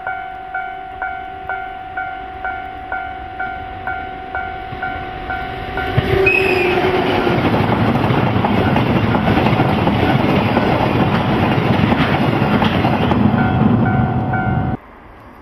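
A level-crossing bell dings about twice a second. About six seconds in, the loud rumble and rail-joint clatter of a freight train of oil tank cars passing close by takes over. The bell is heard again faintly near the end, then the sound cuts off suddenly.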